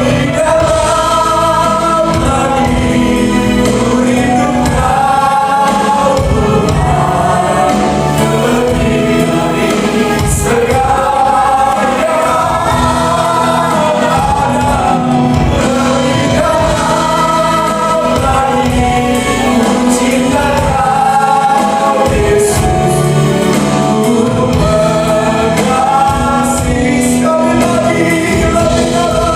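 Choir singing a gospel worship song over band accompaniment with a steady beat.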